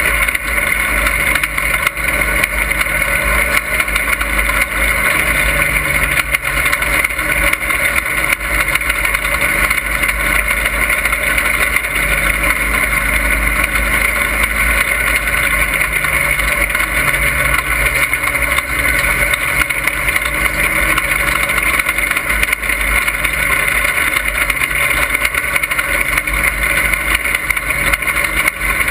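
Dirt-track stock car engine running hard at racing speed, heard from inside the cockpit as a loud, steady din.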